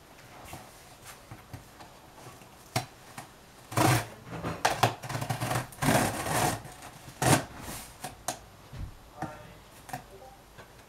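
Packing tape on a cardboard shipping box being slit and torn open with a pointed blade: a series of short scraping, tearing strokes, the loudest between about four and seven and a half seconds in.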